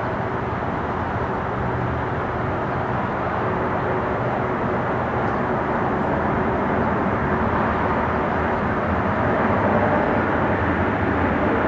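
Four-engined Boeing 747 jet on final approach with its gear down, its engines giving a steady, dense rush of noise with a faint steady whine, growing slowly louder as it comes closer.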